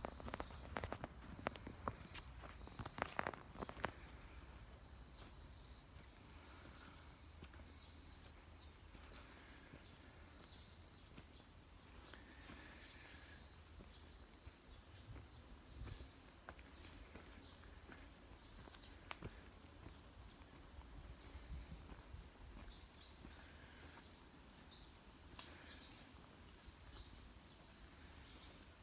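Steady, high-pitched chorus of insects chirring in the forest, growing a little louder over time. A few footsteps crunch on the trail in the first few seconds.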